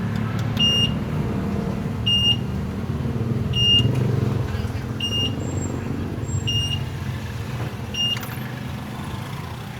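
A high electronic beeper sounding six short, even beeps, about one every second and a half, over the steady low rumble of a riding e-bike and road traffic.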